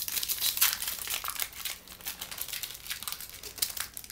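Plastic wrapper of a pack of hockey trading cards being torn open and crinkled by hand: a run of irregular, high-pitched crackles and rustles.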